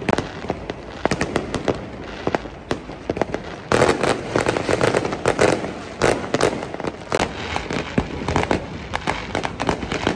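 Many fireworks going off over a city: a dense, continuous run of bangs and crackles, with a louder stretch of overlapping bursts about four seconds in.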